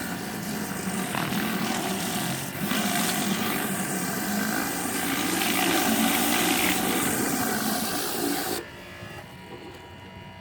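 Northstar 3000 PSI electric pressure washer running, with the high-pressure spray hissing onto the ground through a Powerhorse rotating-nozzle floor surface cleaner as it strips moss. The noise cuts off abruptly near the end, leaving a low hum.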